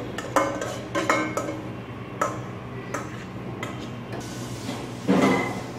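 Stainless-steel kitchen utensils (bowls, spoon and pans) clinking and knocking. There are several separate metallic clinks that ring briefly and a louder clatter about five seconds in, over a steady low hum.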